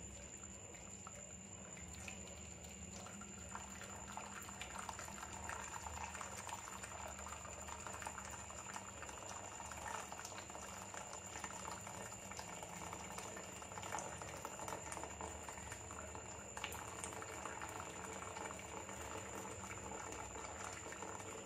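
Red lemon-pickle syrup pouring from a pressure-cooker pot into a pan, with a steady fizzing, bubbling crackle as the thick syrup froths.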